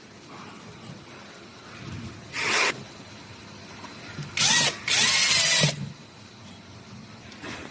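Power drill run in three short bursts, the last the longest, its motor whine rising and falling in pitch with the trigger.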